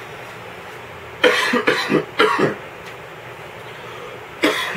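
A man coughing after inhaling smoke from a small bong: three coughs in quick succession about a second in, then one more near the end.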